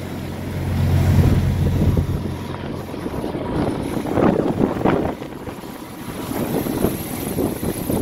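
Blizzard wind buffeting the microphone in uneven gusts, with a heavy low rumble in the first two seconds.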